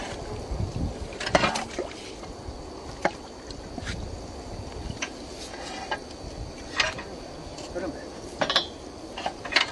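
Scattered sharp knocks and clinks at irregular intervals from work at a small water-well drilling rig, over a steady low rumble.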